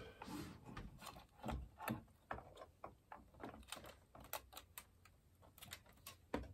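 Faint, irregular light clicks and taps from a treadmill console's display circuit board being pressed into its plastic console housing and handled among its wires.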